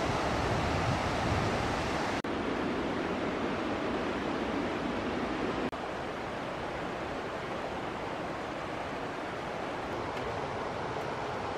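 Steady rushing of a river over rocks, a continuous hiss of white water. It drops out briefly about two seconds in and again about six seconds in, and after the second drop the rush is a little softer.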